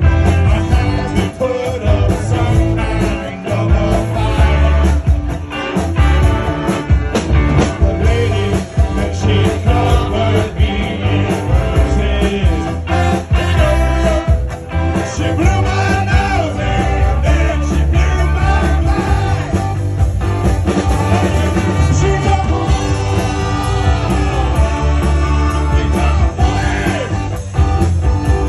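Live German-style oompah band music: accordion, trumpet and drums playing to a steady beat, with singing over it.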